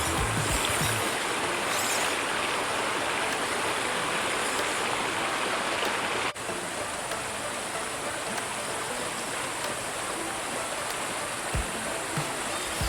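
Steady rush of falling and flowing water from a waterfall stream, with a brief break about six seconds in.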